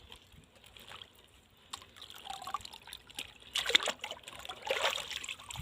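Water trickling and splashing, louder from about three and a half seconds in.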